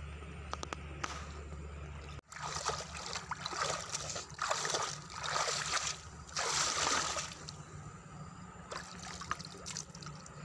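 Shallow water splashing and sloshing as a person wades and moves her hands through it, in several swells, the loudest about four and a half and six and a half seconds in.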